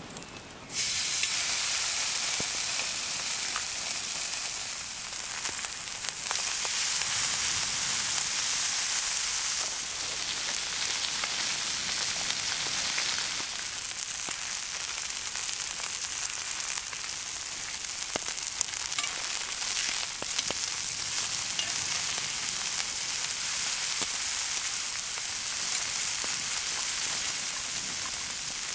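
Beef steaks sizzling as they sear on a hot griddle. The sizzle starts suddenly about a second in, as the meat meets the hot surface, and keeps going with small rises and falls.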